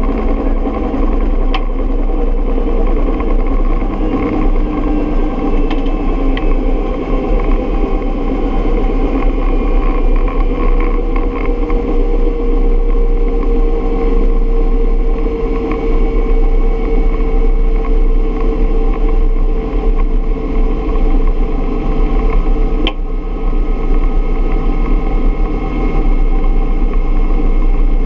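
Bell UH-1 Huey helicopter running steadily, its turbine whine and main rotor heard from inside the cabin as a loud, continuous drone with a strong low hum; one tone in the whine drifts slightly lower midway.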